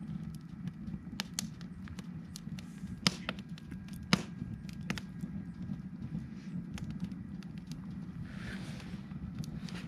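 Wood campfire crackling, with irregular sharp pops and two louder snaps about three and four seconds in.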